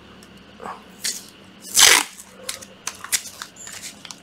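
Masking tape being pulled off its roll: a short pull about a second in, then a loud rip about two seconds in. Light clicks and taps follow as the taped bundle of 18650 battery cells is handled.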